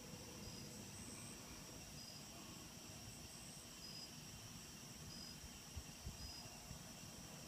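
Faint chorus of crickets and other night insects: a steady high trilling with a short chirp repeating every second or so, over a low background rumble with a couple of soft knocks near the end.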